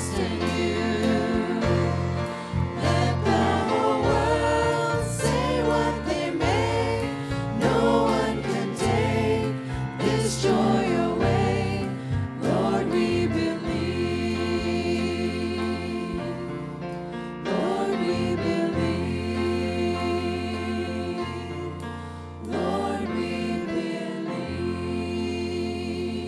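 A church worship team of several singers on handheld microphones sings a gospel song in harmony over band accompaniment with a steady bass line. Near the end they hold a long final chord.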